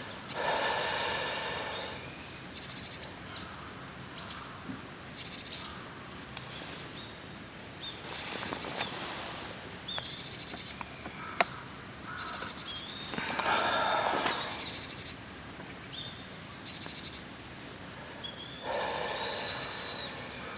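Wild birds calling with many short chirps and quick trills, between three louder noisy bursts of a second or two each.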